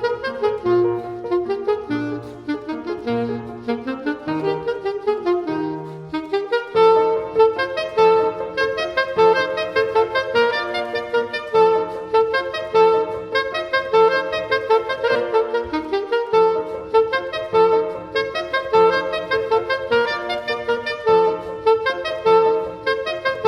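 Classical saxophone playing a melody with piano accompaniment. About six seconds in, the saxophone settles into long held notes over evenly repeated piano chords.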